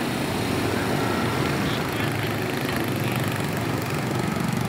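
Small motorbike engine running steadily, a low even drone with no change in pitch.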